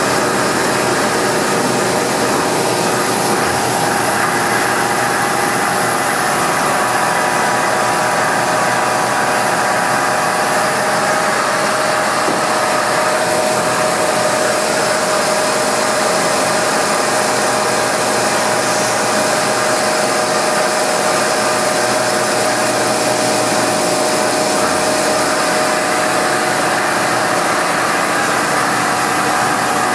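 Mori Seiki MV653/APC vertical machining center running a milling cycle, its spindle turning at 265 rpm under feed and coolant pouring over the work: a steady machine hum and hiss with a few constant whining tones.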